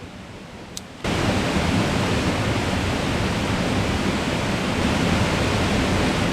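Steady rush of a mountain creek's flowing water. It is softer for the first second, then much louder and even from about a second in.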